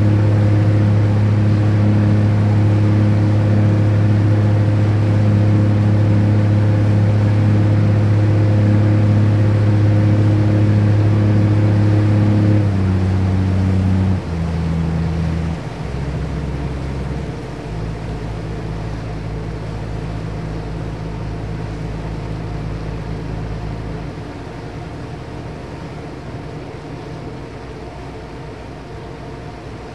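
Ferry's engine running with a loud, steady low hum, then easing off in a few steps about halfway through and settling quieter.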